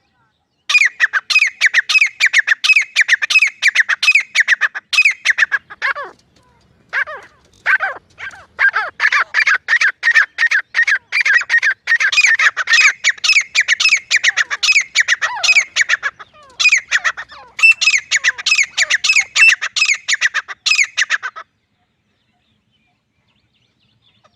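Grey francolin calling in a long, rapid series of harsh, squawking notes, about four a second, with a brief break partway through; the calls stop a few seconds before the end.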